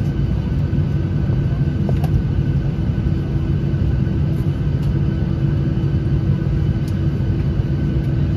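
Airliner cabin noise while taxiing: the jet engines at idle give a steady low rumble with a constant hum, heard through the fuselage.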